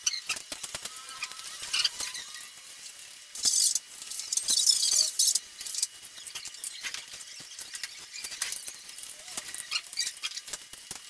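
Small clicks and taps of fingers handling small parts on a Phantom 4 drone's plastic body during a repair. It is interrupted by two short bursts of high-pitched noise, about three and a half and four and a half seconds in, the second lasting over a second.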